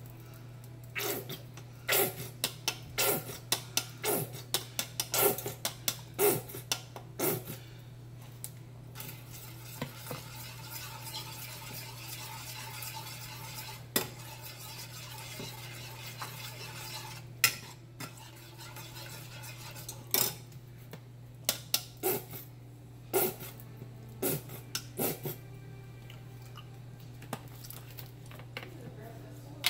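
Metal spoon stirring sauce in a saucepan, clinking and scraping against the pot in runs of sharp taps, over a steady low hum.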